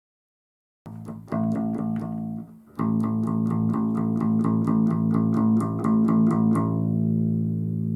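Electric bass guitar played through an Ampeg BA-series V2 combo amp. After about a second of silence come a few notes and a brief gap, then a run of fast repeated notes at about five a second, ending on a held note that rings out.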